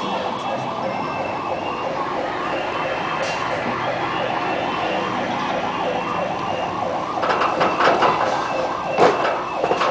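A siren sounding in a fast, even warble, rising and falling several times a second. From about seven seconds in, louder knocks and clatter sound over it.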